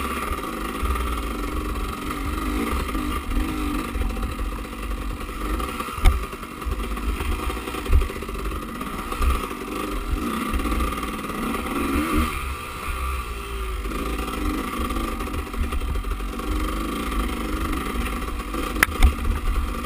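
Enduro dirt bike engine heard from a camera mounted on the bike, its revs rising and falling over the trail, with a heavy low rumble and a few sharp knocks from the bumps.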